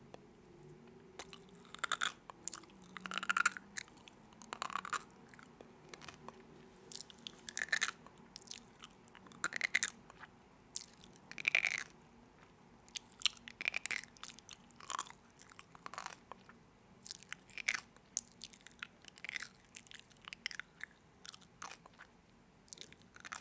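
Close-miked eating: a person biting into and chewing crisp food, an irregular string of sharp crunches.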